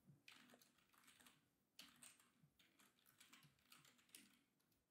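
Faint typing on a computer keyboard, a loose run of single key clicks.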